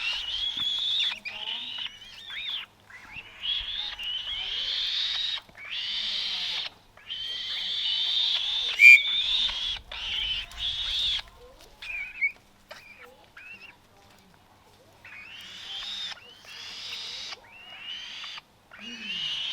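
Young falcon, about 35 days old, making hungry food-begging calls: repeated harsh screeching calls, each about a second long, with short breaks between them, quieter in the second half. A single sharp click about nine seconds in.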